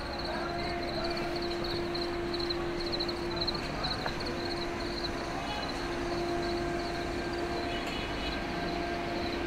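Night outdoor ambience: a steady low mechanical hum that drops out briefly in the middle, under a high chirping that pulses about three to four times a second.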